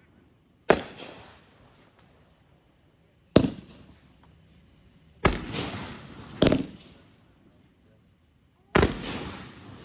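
Consumer fireworks from Phantom Fireworks going off: five sharp bangs one to three seconds apart, each trailing off over about a second.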